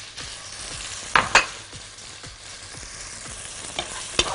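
Diced zucchini sizzling in hot oil in a pot, stirred with a wooden spatula, with a few sharp knocks against the pot: a pair about a second in and one near the end.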